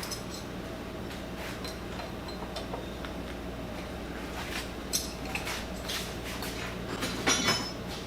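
Metal guard being worked loose and slid along a metal lathe, with scattered metal scrapes and clinks that are loudest about five seconds in and again near the end, over a steady low hum.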